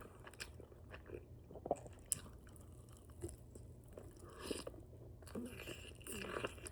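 Open-mouth chewing of chicken wings close to the microphone: scattered wet smacks and crunchy bites, with two sharper clicks about two seconds in, over a low steady hum.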